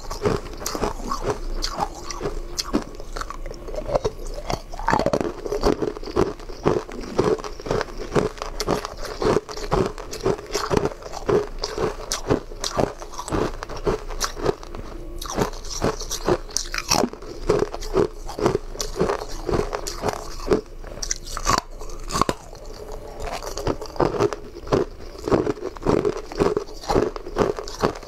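A person biting and chewing chunks of frozen coloured ice: a steady run of sharp crunches and cracks as each piece breaks between the teeth.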